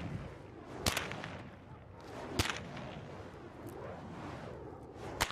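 Bullwhip cracking: three sharp cracks a second or two apart, the last near the end, with a fainter snap between. Each crack is a small sonic boom from the tip breaking the sound barrier.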